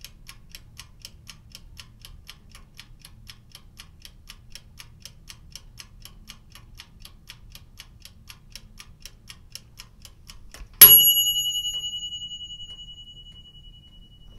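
Mechanical oven timer ticking quietly and evenly, about five ticks a second. Near the end it reaches zero and its bell rings with one loud strike that dies away over a few seconds.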